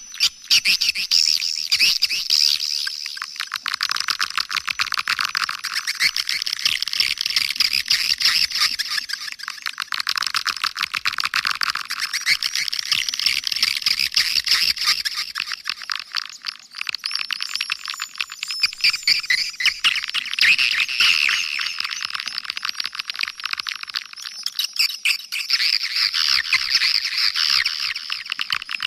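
Swiftlet lure call: a recording of many swiftlets twittering in a dense, unbroken stream of rapid high chirps, with the low end cut away. It is the calling sound played in swiftlet houses to draw the birds in to roost and nest.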